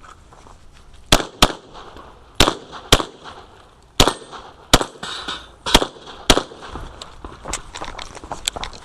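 Semi-automatic Glock pistol firing a USPSA stage string: about eight sharp shots, mostly in quick pairs, with several fainter cracks near the end.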